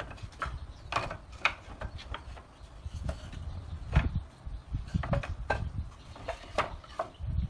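Wooden offcuts knocking and clattering against each other as they are pulled from a scrap-wood rack and handled: irregular knocks, the loudest about four seconds in.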